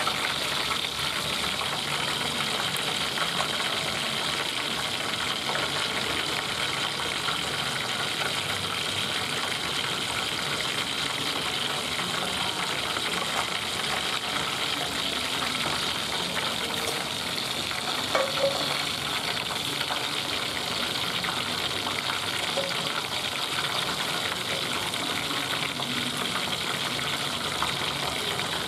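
Hot oil sizzling and crackling steadily as a whole scored fish deep-fries in a pot, with one brief louder pop about two-thirds of the way through.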